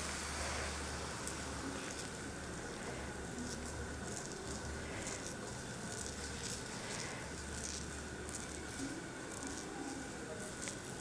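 Steel ladle spreading dosa batter in circles on a hot dosa griddle: a faint wet swishing with scattered soft sizzling crackles, over a low hum that comes and goes.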